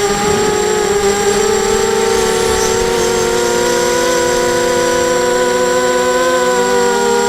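Eachane Racer-250 racing quadcopter's brushless motors and propellers running with a steady whine, several pitches that drift slowly apart and back together as the motor speeds vary.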